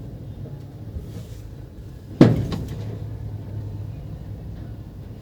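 A single sharp clack about two seconds in, as a part of the opened motor starter is handled or set down on the bench, over a steady low hum.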